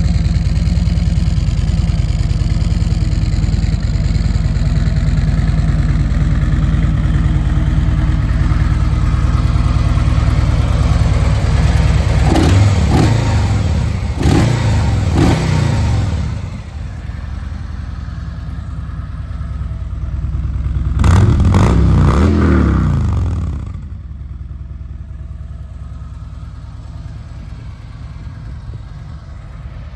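A 2017 Harley-Davidson Tri Glide trike's Milwaukee-Eight 107 V-twin engine idling with a steady beat. It is revved in three short blips about halfway through and one longer rev a few seconds later, then settles back to idle, quieter near the end.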